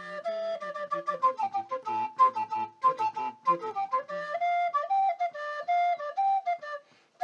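Shepherd's flute music: a quick run of notes over lower accompanying notes, then a slower melody of held notes from about four seconds in, stopping just before the end.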